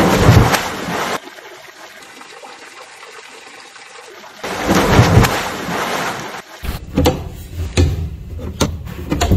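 A diver entering a pool feet-first with a loud splash, heard twice, with a quieter rush of water between the splashes. From about two-thirds in, a different sound takes over: a low rumble with a run of sharp knocks and clatters.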